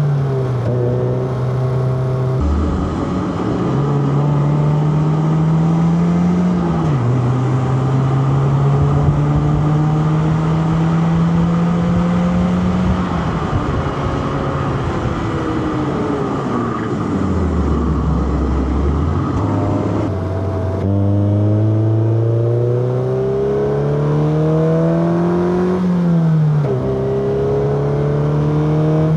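Inline four-cylinder petrol car engine under hard acceleration, revs climbing and then dropping sharply at several gear changes. Around the middle the revs fall away to a low hum as the car slows, then the engine pulls up through the gears again, with steady tyre and road noise underneath.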